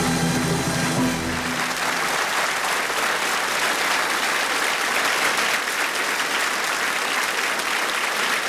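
Orchestral music holding a final chord, which ends about a second and a half in, followed by an audience applauding.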